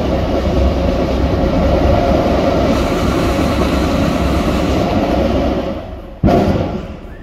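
A passing train: a steady rumble and rattle with a faint whine, fading away about five and a half seconds in. It is followed by one short, loud thump.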